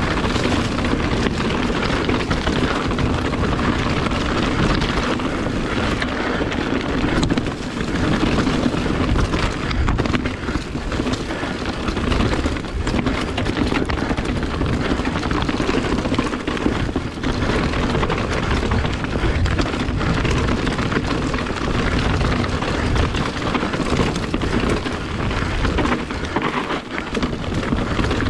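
Wind rushing over the microphone and the steady rolling noise of a Kona Process 153 full-suspension mountain bike's tyres on leaves and rocks during a fast descent, with constant small knocks and rattles from the bike.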